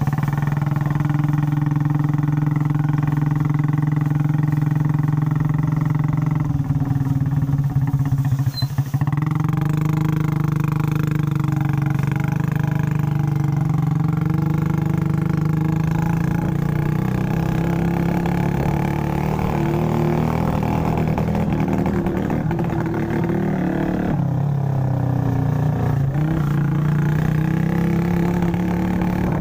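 Small motorbike engine running while riding, with a steady note. It falters and drops about eight seconds in, then picks up again, rising and falling with the throttle.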